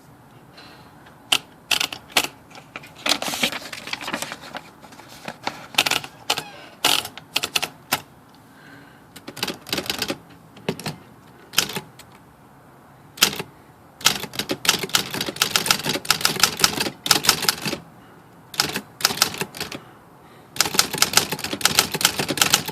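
Remington Quiet-Riter manual typewriter being typed on to test a newly fitted ribbon: key strikes in irregular bursts, some slow and spaced, others in fast runs, with short pauses between.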